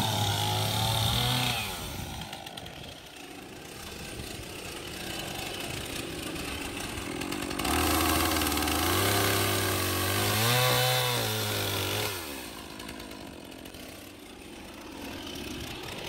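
Two-stroke chainsaw mounted in an Alaskan chainsaw mill, running at high revs, easing off to a quieter, lower note after about a second and a half, then revving hard again for about four seconds from about halfway through, its pitch dipping and recovering, before easing off once more.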